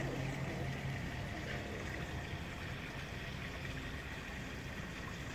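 Steady background noise: an even hiss with a low hum that fades about a second in and a faint steady high tone.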